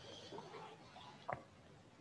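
Faint handling noise, then one short sharp knock about a second and a half in, from communion vessels being handled and set down on the altar table.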